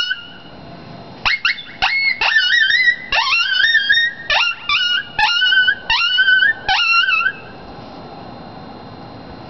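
Handmade bison horn howler blown in a quick series of about a dozen short, high yelps and whimpers, each sweeping sharply up and then wavering. It imitates coyote pup distress.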